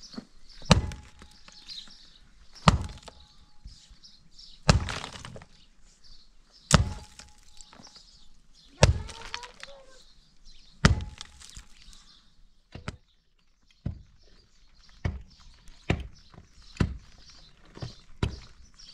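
Heavy blows struck about every two seconds, six in a row, followed by a run of lighter, quicker knocks.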